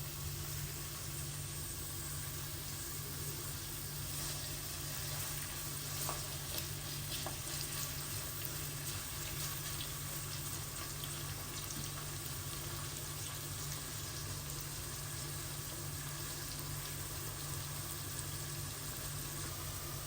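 Food frying in a pan: a steady sizzle with scattered small crackles, over a low steady hum.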